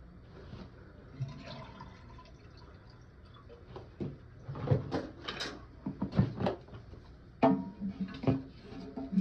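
Irregular knocks and clatter of a toilet tank being worked on as the old fill valve is taken out, with water trickling and dripping. The knocks come in two clusters, from about four seconds in and again near the end.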